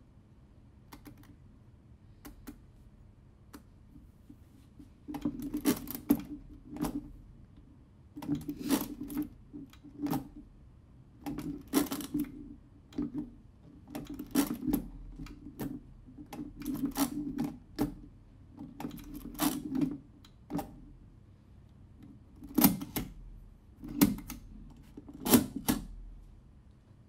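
Brunsviga Nova 13Z pinwheel mechanical calculator being operated. Faint clicks come from the setting levers, then from about five seconds in the hand crank is turned again and again, each turn a burst of clattering gear and ratchet clicks. A few sharper clacks sound near the end.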